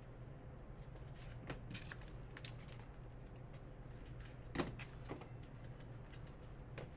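Faint clicks and taps of trading cards being handled and set down, the loudest about four and a half seconds in, over a steady low hum.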